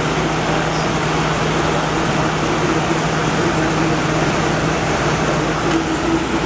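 Window air conditioner running with its fan on high and its compressor on: a loud, steady rush of air over a low hum.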